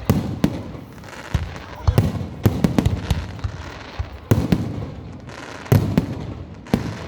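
Fireworks going off: an irregular string of sharp bangs and cracks, several close together, each trailing off in a low rumbling echo.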